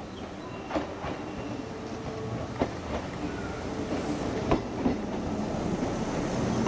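Kintetsu 16200-series train running through the station at low speed, its wheels clacking over rail joints and points. A handful of separate clacks rise out of a steady rumble, which grows slowly louder, with faint wheel squeal.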